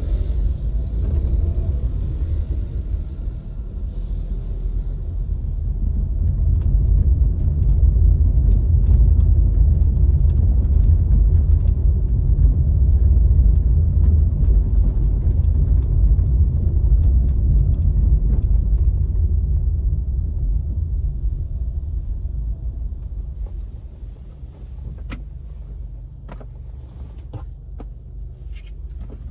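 A car driving, heard as a low rumble of road and engine noise that builds to its loudest midway and eases off in the last several seconds, with a few light clicks near the end.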